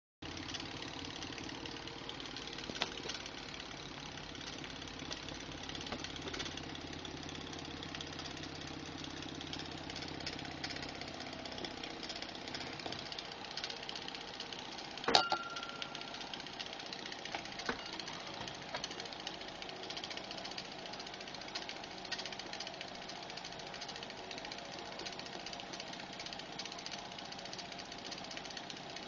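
Hand-made steel-and-brass live steam outboard engine running steadily on steam from a small alcohol-fired boiler, a fast even beat with its propeller spinning in air. One sharp knock about halfway through.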